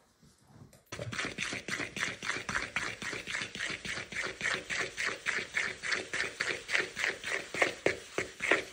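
A fork stirring and scraping through crumbly pastry dough in a mixing bowl, in quick even strokes about four a second, starting about a second in.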